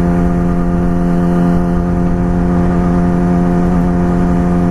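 Yamaha R6 sport bike's inline-four engine running at a steady speed under way, its pitch holding level, with low wind rumble on the microphone.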